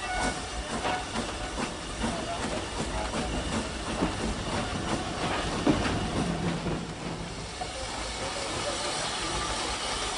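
Steam locomotive under way at low speed: a steady hiss of steam with the clatter of wheels on the rails. A couple of sharper knocks come about four and six seconds in.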